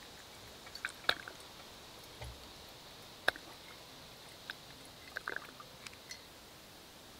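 Faint squishes and a few small, sharp clicks as alcohol fuel is squeezed from a plastic squeeze bottle into the cup of a small alcohol stove, with a soft low bump about two seconds in.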